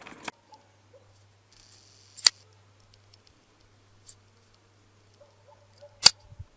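Two sharp clicks, one about two seconds in and a louder one near the end, over a quiet background with a faint steady low hum.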